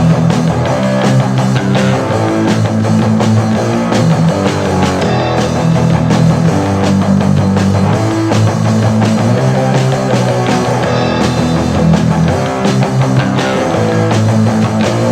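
Loud rock music: a band with guitar over a drum kit keeping a steady beat.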